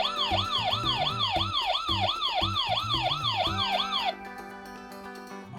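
Electronic siren sound effect from a Technopark toy police-post playset: a fast wailing siren of about three rising-and-falling sweeps a second, which cuts off about four seconds in.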